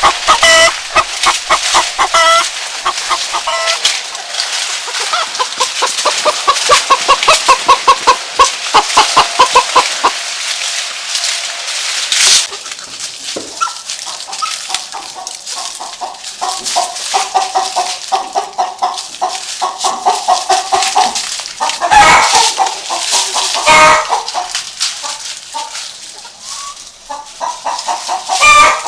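Chickens clucking, with a fast, even run of clucks, about four a second, partway through.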